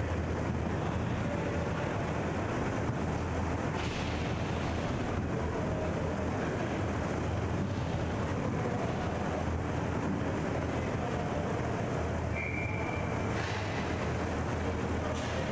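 Steady rumbling hum of an indoor inline hockey rink during play, with a few faint clacks scattered through and a short high note about three quarters of the way in.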